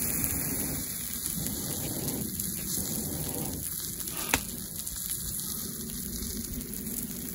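Steak sizzling on a hot iron griddle plate, a steady hiss, with one sharp click about four seconds in.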